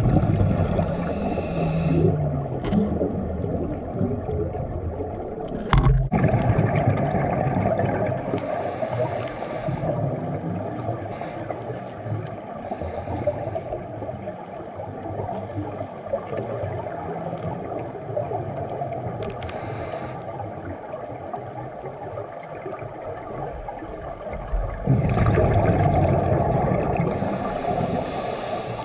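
Underwater scuba diver breathing through a regulator: several hissing inhales and gurgling bursts of exhaled bubbles, with a single sharp knock about six seconds in.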